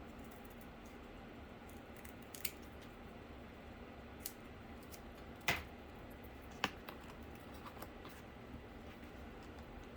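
A few scattered sharp clicks and taps from handling cardboard pieces and tools during case building, the loudest about five and a half seconds in, over a quiet room background.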